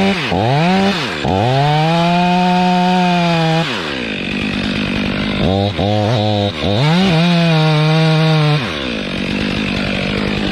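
Two-stroke chainsaw cutting into a large maple trunk, running at full throttle with its pitch dropping and climbing back several times as it loads in the cut, then running at a lower pitch near the end.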